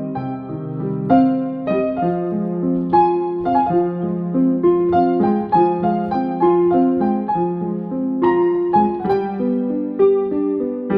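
Piano music: a melody of single notes over held chords, a new note struck about every half second.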